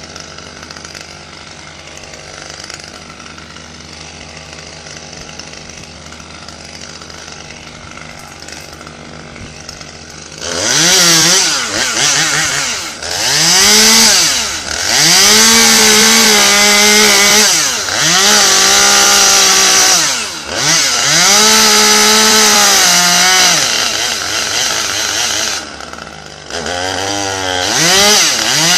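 Chainsaw idling for about ten seconds, then revved hard in several long runs while cutting pine wood up in the tree. Between runs the engine pitch sags and climbs again.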